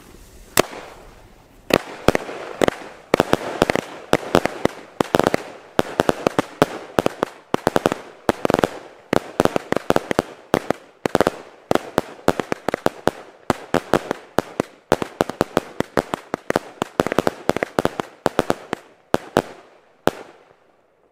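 Consumer fireworks battery firing shot after shot: rapid sharp bangs of small aerial bursts with crackle, several a second, stopping suddenly about a second before the end.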